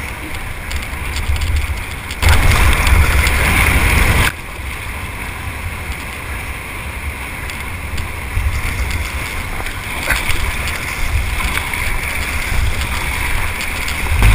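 Rushing whitewater heard from an inflatable kayak in a river rapid, over a low rumble of wind on the microphone. About two seconds in, the rush turns much louder for about two seconds and then drops back suddenly.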